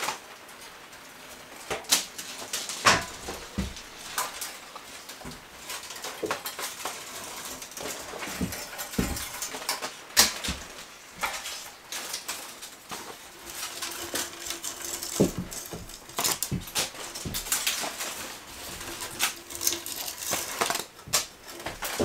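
Irregular clicks, taps and rustles of hands fastening a thin strand of colour-changing LED string lights along a wooden beam.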